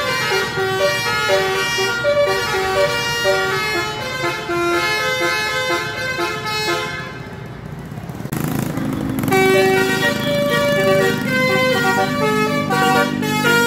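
Bus 'telolet' musical air horn playing a quick tune of short, changing notes. About eight seconds in there is a brief hissing burst, then the notes go on over a lower steady drone.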